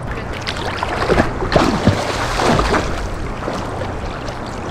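Shallow seawater splashing and sloshing close to the microphone as a person wades through it, with several short splashes.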